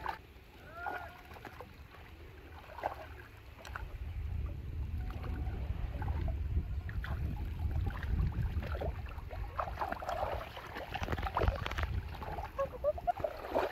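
Shallow muddy water sloshing and splashing as hands grope and move through it, with a low rumble through the middle.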